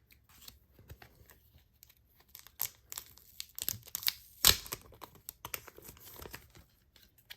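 Photocard packaging being handled and unwrapped: irregular crinkling, rustling and tearing, with one sharp crackle about four and a half seconds in.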